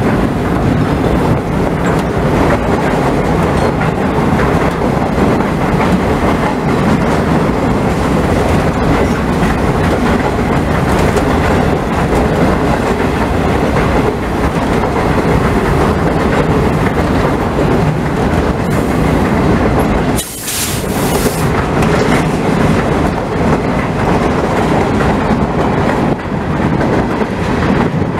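Freight train in motion, heard from the walkway of one of its Ferromex GP40-2 diesel locomotives: a steady rumble with wheels clattering over the rail joints. About two-thirds of the way through, the noise dips briefly and a short hiss follows.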